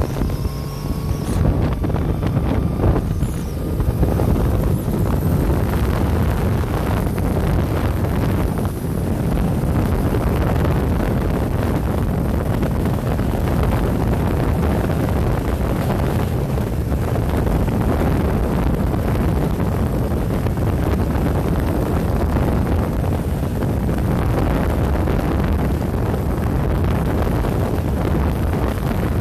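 Steady wind rumble on the microphone from a motorcycle moving at highway speed, with the bike's running noise and road noise underneath.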